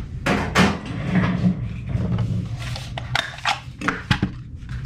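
Small objects being handled: a string of sharp clicks and knocks with brief rustling, over a steady low hum.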